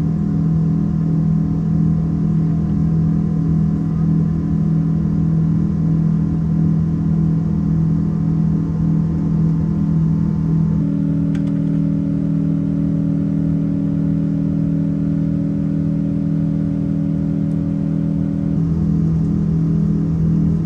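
Cabin noise of a Boeing 777-200 on the ground with its Pratt & Whitney engines running: a loud, steady drone with a rhythmic pulsing. A little past halfway the pulsing gives way to a smoother, steady tone, and it returns near the end.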